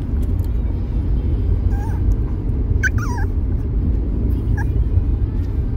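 A micro teacup toy poodle gives a few short, high whimpers, one falling in pitch about three seconds in: the lonely whine of a dog whose owner is leaving. A steady low rumble from the car cabin runs beneath.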